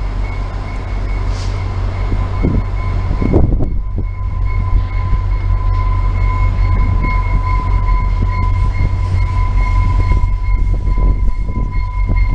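VIA Rail F40PH diesel locomotive and its passenger cars approaching, a low rumble that grows steadily louder as the train draws near. A steady high tone is held over it throughout.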